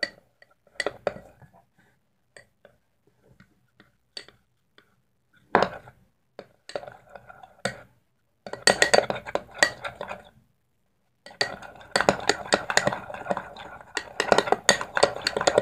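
A spoon stirring glue and food colouring in a small glass bowl, tapping and scraping against the glass: scattered taps at first, then steady fast stirring from about halfway.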